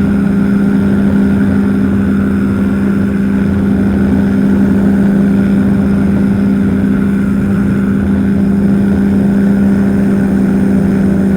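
Powered parachute's engine and propeller running at a steady cruise power in level flight, one unchanging pitched note.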